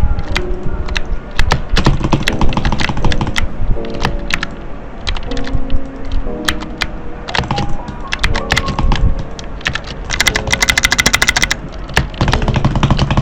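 Clicky blue mechanical switches being clicked rapidly and irregularly, with a very fast run of clicks from about ten seconds in lasting a second and a half, over background music.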